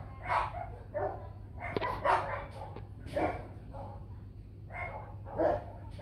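Dogs barking: a string of short barks, roughly one or two a second, over a low steady hum.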